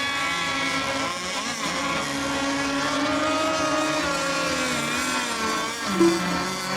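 Several radio-controlled racing boats running together on the water, their engines whining at different pitches that drift slowly up and down as they circle before a race start. A short beep sounds near the end.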